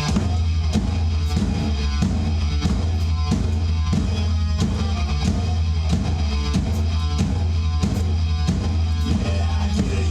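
Hard rock with heavy guitar, a sustained low bass and a drum kit playing a steady driving beat, about three hits a second. The drum kit comes in right at the start.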